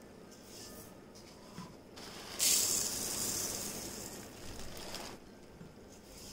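Dry kaima rice grains pouring from a plastic measuring cup into a pot of rice, a hissing rush that is loudest about two and a half seconds in, with quieter scooping of the cup through the rice around it.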